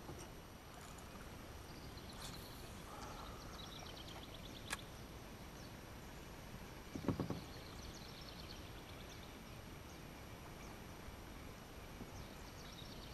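Quiet open-air river ambience: a steady low hiss with faint high trills now and then, a single sharp click a little under five seconds in, and a brief low sound about seven seconds in.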